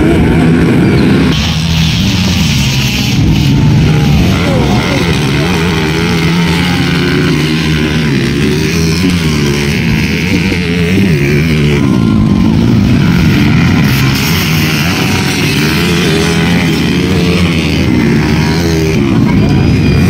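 Racing dirt bike engines revving up and down over and over as the bikes run past on a grasstrack circuit.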